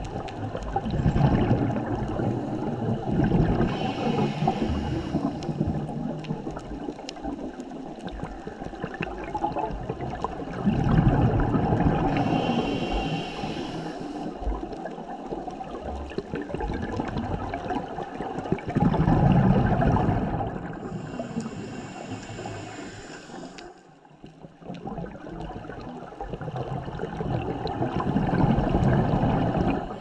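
Scuba diver breathing through a regulator, heard underwater: four loud, gurgling rushes of exhaled bubbles, about every eight to nine seconds, with quieter water noise between them.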